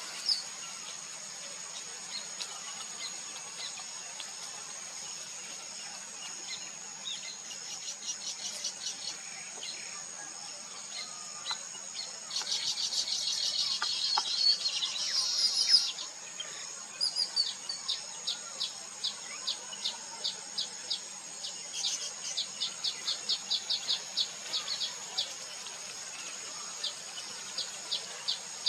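Steady high insect drone with small birds chirping over it: a few seconds of dense, rapid chattering about twelve seconds in, then a long run of short chirps repeated several times a second.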